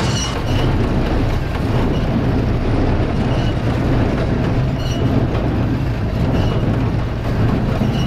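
Oliver 720 small square baler running steadily as straw is fed through it, over the steady low hum of the tractor driving it. A few short high squeaks come through.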